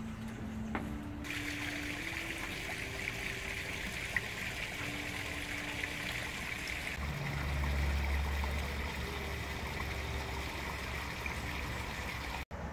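A steady trickling hiss of running water, setting in about a second in. A low rumble swells and fades past the middle.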